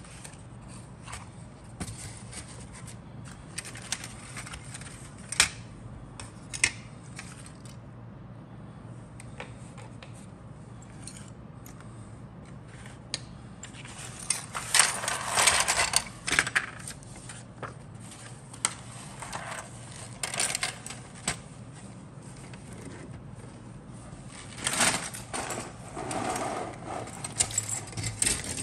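Plastic model kit parts clicking and rattling against each other and the cardboard box as they are handled. There are scattered single clicks, then two longer bouts of clatter, one about halfway through and one near the end.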